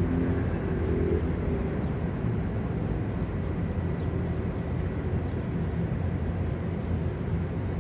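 Steady low engine drone over a wide, even background rumble.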